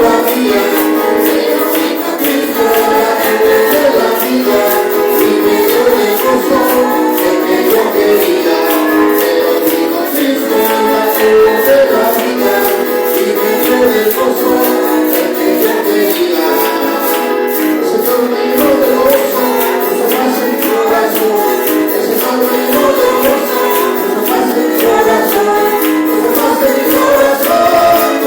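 Congregational praise music: voices singing over instruments, with a steady percussion beat.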